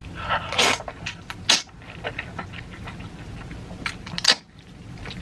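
Close-miked eating sounds: irregular crunching and chewing, with three sharp, loud crunches about half a second, a second and a half, and four seconds in.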